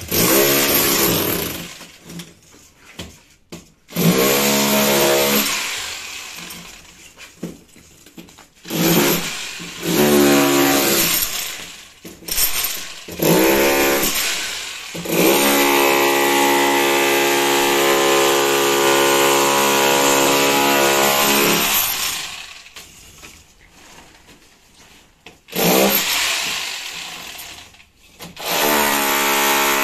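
Electric SDS rotary hammer with a pointed chisel bit breaking up brick and mortar. It runs in repeated bursts of a few seconds, each starting with a rising motor whine, and the longest burst lasts about seven seconds near the middle.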